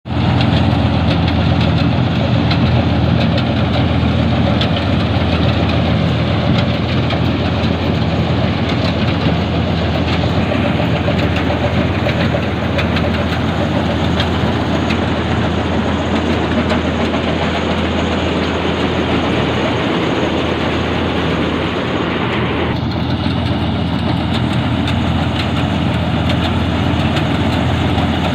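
Gill Preet 962 combine harvester running steadily while it cuts a mung bean crop: the engine's steady hum with the clatter of the header and threshing mechanism. The tone shifts slightly about three-quarters of the way through.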